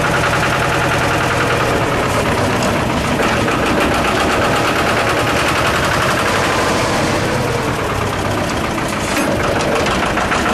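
Lister two-cylinder diesel engine of a Winget mini articulated dumper running with a fast, steady clatter.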